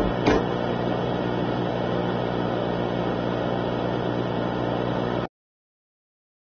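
A last beat of the preceding music, then a steady hiss with a low droning hum under it. It cuts off suddenly about five seconds in, leaving dead silence.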